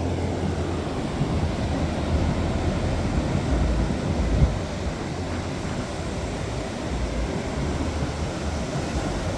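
Strong wind buffeting the microphone in gusts, a low rumble over the steady wash of ocean surf.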